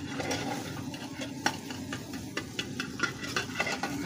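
A flat metal spatula scraping and clinking irregularly against a black iron pan as egg bhurji is stirred and fried, over a steady low hum.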